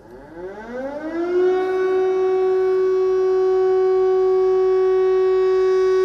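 Air raid siren sounding an alert: it winds up, rising in pitch for about a second and a half, then holds one steady loud tone.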